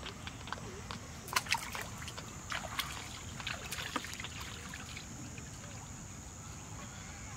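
Small splashes and sloshes of shallow water with rustling of waterside weeds as hands work at the canal's edge, in an irregular run of sharp splashes, most between about one and four seconds in.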